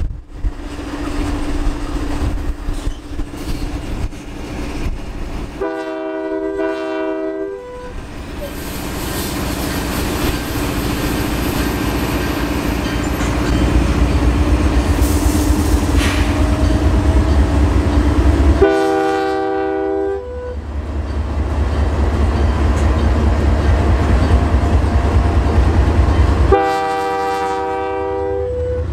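GE diesel-electric locomotives, an AC4400CW and an ES44AC, throttling up to pull the train away, their low engine rumble building steadily. Over it come three long blasts of the locomotive air horn: one about six seconds in, one about nineteen seconds in, and one near the end.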